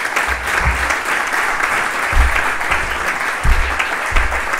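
Audience applauding steadily, with a few dull low thumps.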